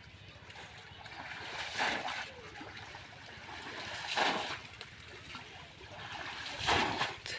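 Pond water splashing and sloshing as a man wades waist-deep and works his hands through the water, in three swells about two and a half seconds apart.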